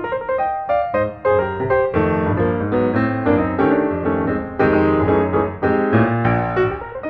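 Piano music: a steady stream of notes, several struck each second.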